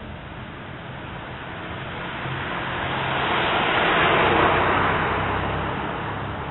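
A car passing by, its tyre and road noise swelling to a peak about four seconds in and then fading.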